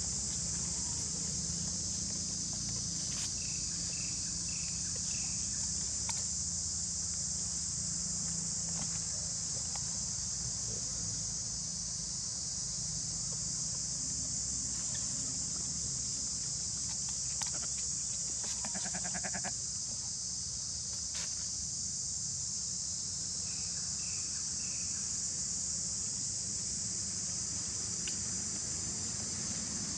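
Steady high-pitched drone of insects, with a few short chirps in two small groups and one brief buzzy call about two-thirds of the way in.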